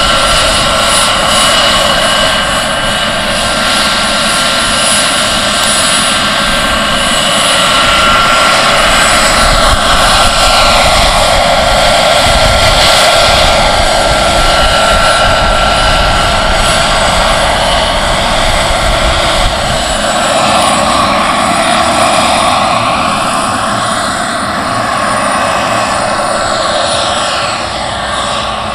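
Giant radio-controlled Eurocopter EC145 scale model helicopter in flight: its model turbine engine whining steadily over the rotor noise. The whine bends up and down in pitch as it passes by.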